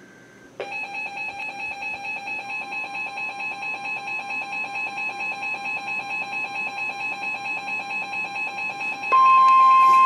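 NOAA weather radio's alert alarm sounding a rapid, pulsing electronic beep, set off by an incoming severe thunderstorm warning. About nine seconds in, the broadcast's steady 1050 Hz warning alarm tone comes on, louder.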